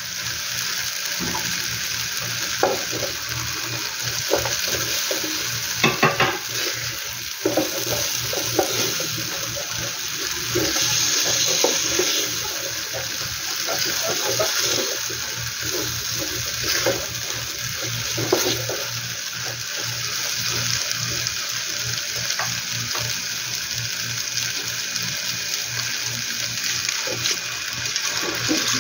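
Onions, tomatoes and bell peppers with curry powder sizzling steadily in hot oil in a pan, with a wooden spoon stirring and scraping through them in irregular strokes.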